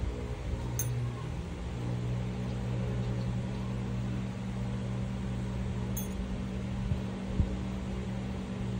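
Steady low mechanical hum of a running motor, with two faint brief clicks.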